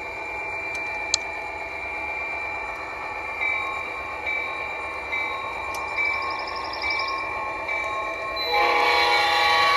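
Sound system of a large-scale model Norfolk Southern GP-60 diesel locomotive: a steady diesel engine drone with a short tone recurring about once a second. Near the end, a louder horn blast starts and holds.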